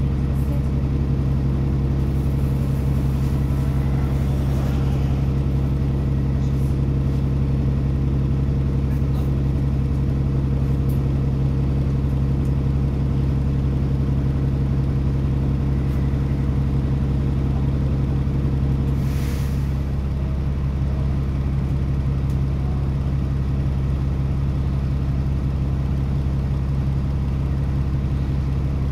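Bus engine running with a steady low drone, heard from inside the passenger cabin, its pitch not rising or falling. About two-thirds of the way through there is a brief hiss, and after it the engine note thins slightly.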